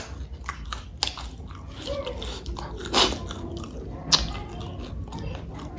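Close-miked chewing and biting of food, with irregular wet clicks and a few louder smacks.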